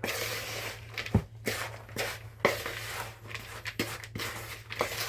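Dry pudding mixture of flour, dried fruit and breadcrumbs being stirred in a mixing bowl: irregular scraping with a few short knocks against the bowl.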